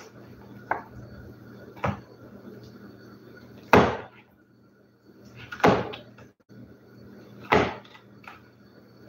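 Silicone spatula stirring sticky yeast dough in a glass mixing bowl while melted butter is worked in, with five sharp knocks about every two seconds as the spatula and bowl strike, the loudest near the middle.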